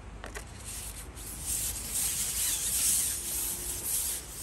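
Rubbing hiss of a carbon fishing pole sliding out as it is shipped back over the water. It builds about a second in and eases near the end.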